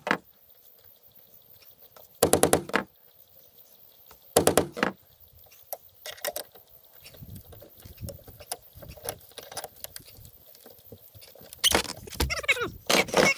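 A handheld power drill run in short bursts of about half a second, twice, boring into wooden barn siding to set hook eyes. Softer clicks and scraping follow, then near the end a longer, busier stretch of drilling with a falling squeal.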